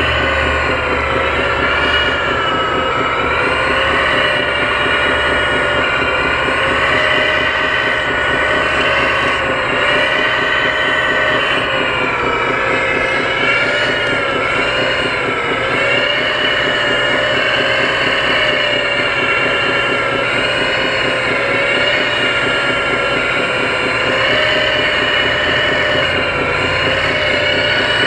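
Hydraulic pump of a 1/14-scale RC CAT 330D excavator whining steadily over a low rumble, its pitch dipping and rising again and again as the boom, stick and bucket dig and swing under load.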